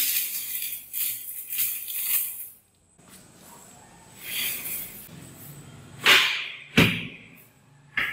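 A bundle of thin, stiff broom sticks clatters and rattles onto a hard tabletop for about two and a half seconds. Then the sticks rustle as gloved hands gather them, and the bundle is knocked sharply upright on the table twice to even the ends.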